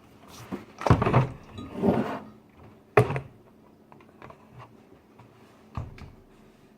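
Handling clatter of a vinegar bottle and plastic measuring cup: a couple of scraping knocks early, one sharp click about three seconds in, then a few light taps and a knock near the end.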